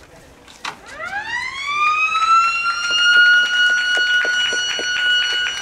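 Stadium motor siren winding up, its pitch climbing for about a second and a half from about a second in, then holding one steady high tone: the siren that marks the end of a Japanese high-school baseball game.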